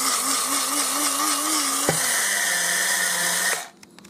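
Electric blade coffee grinder running, grinding rolled oats into flour as it is shaken. Its whine wavers up and down, steadies a little lower about two seconds in, and cuts off sharply about three and a half seconds in.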